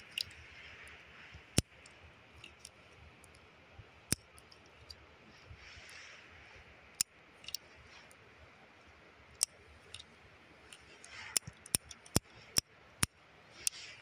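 Sharp metallic clicks from a Heritage Rough Rider .22 single-action revolver's cylinder being turned and handled by hand with the loading gate open. The clicks are scattered at first, then come in a quick run of several near the end.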